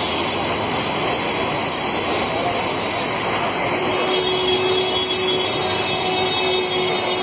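Floodwater rushing in a fast, steady torrent, loud and continuous. A faint steady tone joins it about four seconds in.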